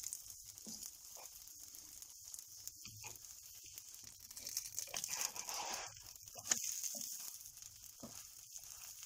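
Gözleme frying in oil in a non-stick pan, giving a steady sizzling hiss, with a wooden spatula now and then knocking and scraping against the pan and the bread. One sharper knock comes about six and a half seconds in.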